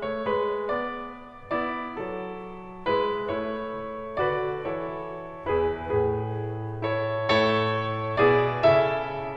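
Background piano music: a slow, gentle tune of single notes and chords, each struck and then fading.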